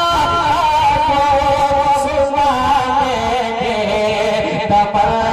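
Solo male voice singing a naat, an Urdu devotional poem in praise of the Prophet, drawing out long, wavering, ornamented notes into a microphone.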